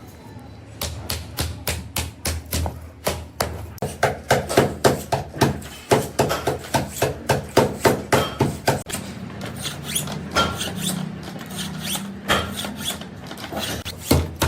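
Hammering: a long run of sharp strikes, about two to three a second, loudest in the middle stretch.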